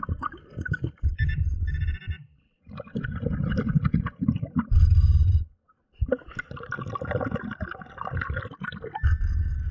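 Underwater bubbling and gurgling from a diver's breathing, heard through a submerged camera: loud low rushes of bubbles about every four seconds, with short high tones in between.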